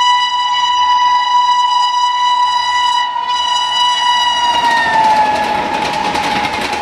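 Twin-tone horn of a WAP-7 electric locomotive sounding continuously as the train approaches at speed. About four and a half seconds in, the horn's pitch drops as the locomotive passes, and the rushing clatter of the passing LHB coaches takes over.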